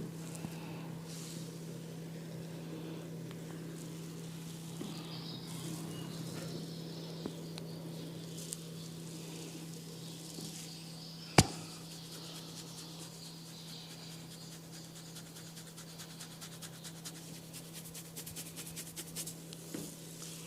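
Barber's fingers scratching and rubbing through a client's hair during a head massage, with one sharp loud crack a little past halfway and a quick run of small crackling snaps near the end, the sounds of hair cracking. A low steady hum runs underneath.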